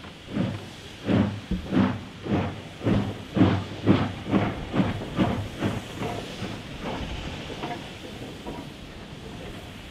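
JS-class 2-8-2 steam locomotive pulling away with its cylinder cocks open: sharp exhaust chuffs mixed with steam hiss, about two a second and quickening. After about six seconds the beats fade into a steady hiss.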